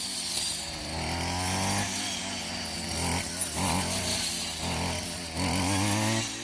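Stihl chainsaw running and revving up and down in repeated surges as it cuts wood, its engine note falling away near the end.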